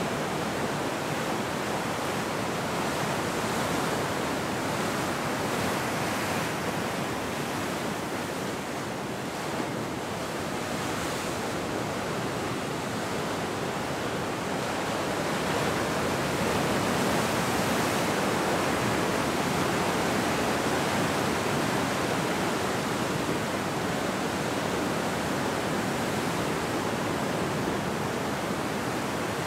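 Ocean surf breaking and washing ashore: a steady rush of white water with no single crash standing out, growing a little louder past the middle.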